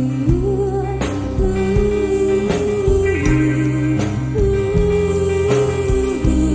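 Music: a guitar-backed song whose melody moves in long, held notes that step and glide between a few pitches over a full low end.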